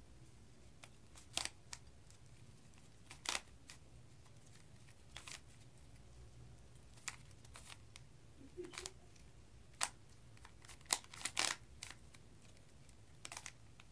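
Rubik's cube being twisted by hand: short plastic clicks and rasps as its layers turn, coming at irregular intervals, some in quick runs and some alone, with pauses between.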